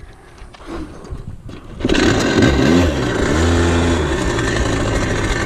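Dirt bike engine firing up about two seconds in, then revving up and down before settling, with the revs climbing again near the end.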